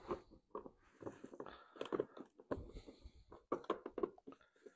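Irregular clicks, scrapes and knocks of a hand tool working on the 10 mm bolts that hold a part in the engine bay of an ATV, with parts being handled.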